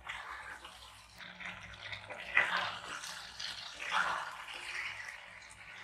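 Baby corn chilli sizzling in its thick sauce in a pan as it is stirred, the sauce cooking down, with two louder stirring strokes about two and a half and four seconds in.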